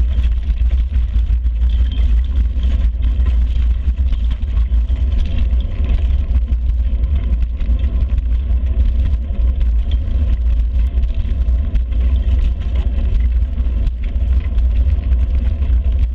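Wind buffeting the microphone and road vibration of a bicycle-mounted camera riding along a street: a loud, steady low rumble.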